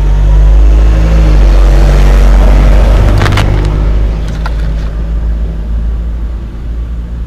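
A motor vehicle's engine running close by as it passes, a loud low rumble that fades over the last few seconds. A few light clicks come near the middle.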